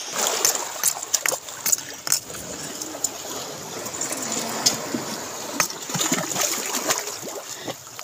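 Seawater washing and splashing over shoreline rocks, with frequent short sharp splashes.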